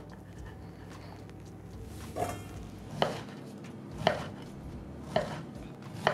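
Kitchen knife cutting dark bread into cubes, each stroke ending in a sharp knock, roughly once a second from about two seconds in.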